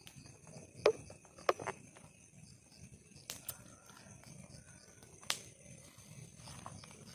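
Insects chirring steadily in the forest, with about half a dozen sharp clicks or knocks, the loudest about a second and a second and a half in, and another a little past five seconds.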